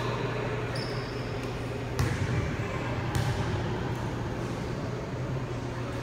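Volleyball struck twice, about a second apart, each hit echoing in a gymnasium, over a steady low hum.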